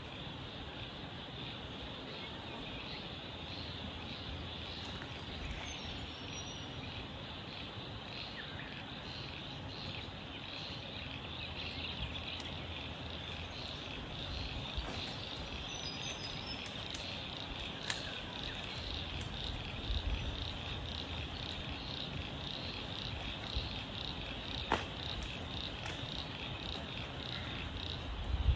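Steady high-pitched chorus of insects, with a few faint sharp clicks and a couple of low thumps, the loudest right at the end.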